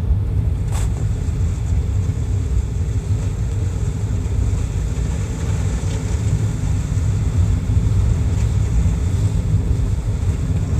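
Steady low rumble of a car's engine and road noise heard from inside the cabin while driving. A single sharp click comes about a second in.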